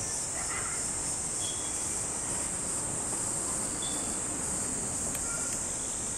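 A steady, high-pitched drone of summer insects, with a few faint short chirps over it.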